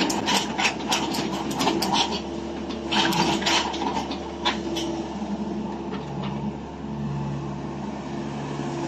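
Doosan DH80 compact excavator's diesel engine running with a steady hum while the machine travels and slews, with a run of sharp metallic clanks in the first few seconds and a few more about halfway through.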